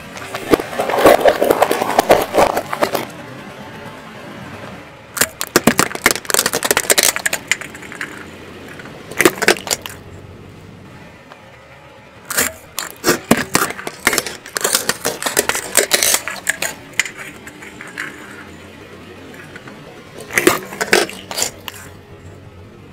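Car tyre crushing things on asphalt, in several bursts of sharp cracking and snapping a few seconds apart. The later bursts are plastic LED light bulbs splitting apart under the tyre.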